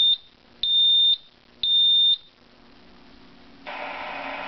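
Smoke detector in drill mode sounding three loud, high-pitched beeps about a second apart, the three-beep fire-alarm pattern. After a pause, its recorded voice message begins near the end.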